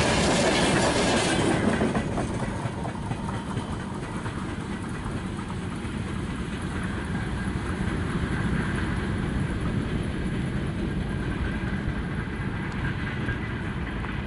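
Freight train wagons rolling over a broad-gauge level crossing. The last wagons pass about two seconds in, and the sound then drops to a steady low rumble as the train moves away.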